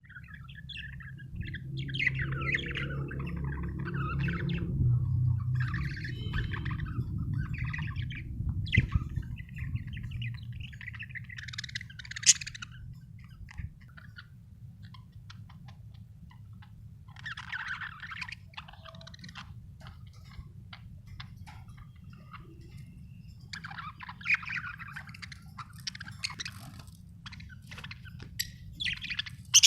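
Budgerigars chirping and chattering in bursts of quick, twittering calls with pauses between, over a steady low hum that is louder in the first ten seconds. A few sharp clicks stand out, the loudest about twelve seconds in.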